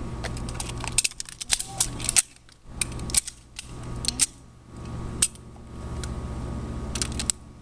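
Semi-automatic pistols clicking in a dry-fire drill, with hammers falling and actions working. The sharp clicks come in a cluster in the first two seconds, then singly, then three in quick succession near the end.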